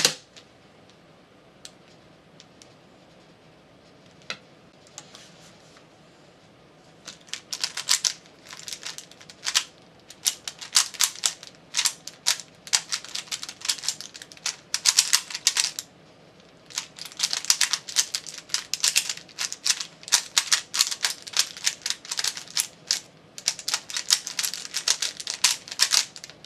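Rubik's brand 3x3 cube being turned fast in a speedsolve: rapid, dense plastic clicking and rattling of the layers, with brief pauses. It starts about seven seconds in, after a few single clicks, and stops just before the end.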